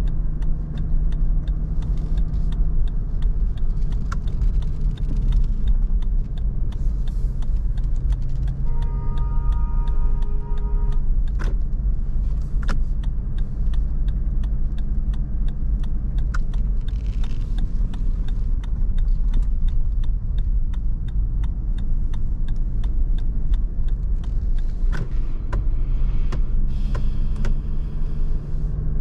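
Lexus LX500d on the move, heard from inside the cabin: a steady low rumble from the engine and tyres, with frequent small clicks and rattles throughout. About nine seconds in, a brief steady tone sounds for around two seconds.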